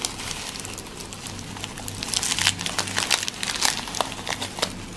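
Foil chocolate wrapper being unwrapped by hands in thin plastic gloves: crinkling and crackling of foil and plastic, growing busier about two seconds in.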